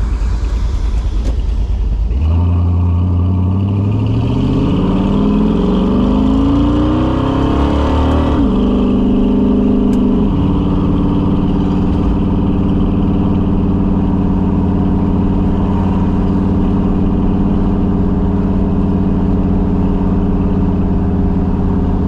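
1968 Dodge Charger's 383 big-block V8 pulling away: from about two seconds in the engine note rises steadily under acceleration, drops sharply at an upshift about eight seconds in and again at a second shift about two seconds later, then settles to a steady cruise. This is the exhaust note with the leak repaired.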